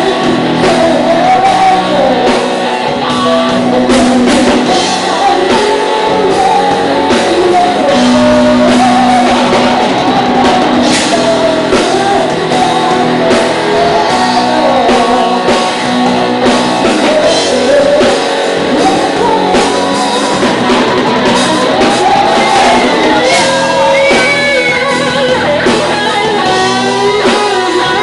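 Live rock band playing loud: sung vocals over electric guitar and drum kit, echoing in a hall.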